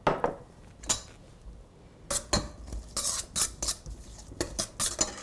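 Utensils knocking and scraping against a stainless steel mixing bowl as a wet marinade of minced shallot, garlic and sauces is stirred: a dozen or so irregular clinks and short scrapes.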